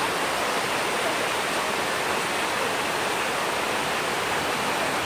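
Waterfall in monsoon flow tumbling over boulders: a steady, even rush of water.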